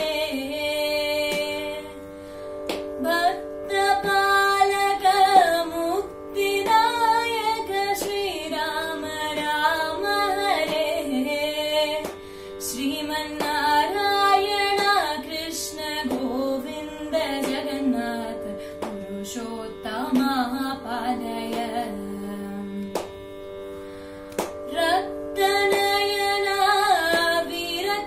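Solo female voice singing a Carnatic-style devotional bhajan to Rama, its melody sliding and ornamented, over a steady drone.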